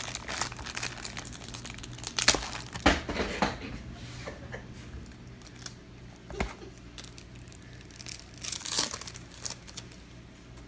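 Yu-Gi-Oh! booster pack wrapper crinkling and being torn open by hand, in irregular crackling bursts, loudest about two to three and a half seconds in and again near nine seconds.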